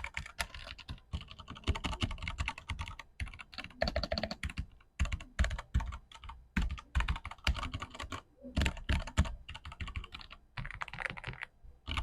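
Typing on an ROG mechanical keyboard with red linear switches: quick runs of keystrokes broken by short pauses.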